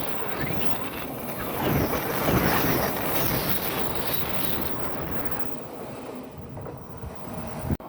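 Odakyu Line electric train running past, its rolling noise swelling about two seconds in and then fading, with wind buffeting the microphone.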